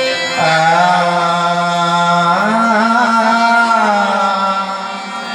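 A single voice singing long, drawn-out, wavering notes of a Gujarati devotional song, stepping up in pitch a little over two seconds in, over instrumental accompaniment.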